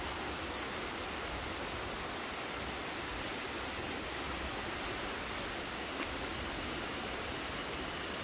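Steady rush of a rainforest creek in flood, water pouring over rocks just below the walking track.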